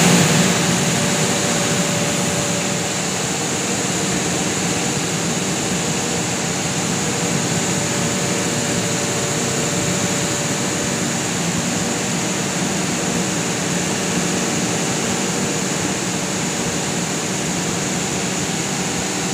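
Large Cummins generator sets running in an enclosed generator room: a loud, steady machine drone with hum tones and a strong hiss, unchanging throughout.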